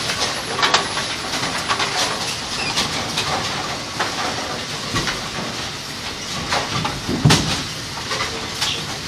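Bowling pins knocking and clattering as they are lifted out of a cardboard box and wiped with a rag, over a steady hiss, with a thump about seven seconds in as a pin is laid into the pin cleaning machine's tub of cleaning media.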